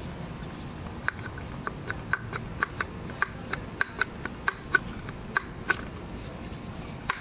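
Series of light metallic clicks, about three or four a second, from the clutch basket of a 2006 Yamaha YFZ450 engine being wiggled by hand to work it free of its shaft. The clicking stops about six seconds in.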